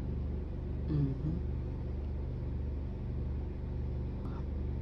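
Steady low background hum in a room, with a short murmured 'hmm' about a second in.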